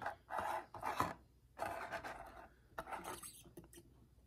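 Thin plastic packaging rustling and crinkling in about four short bursts as a small diecast model airplane is slid out of its plastic sleeve and plastic tray by hand.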